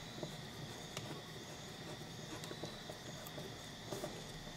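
Faint scattered clicks of a screwdriver turning small screws tight on a two-stroke motorcycle reed valve block, with a faint steady high-pitched whine underneath.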